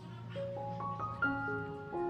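Instrumental background music: a melody of single held notes climbing in steps over a low bass line.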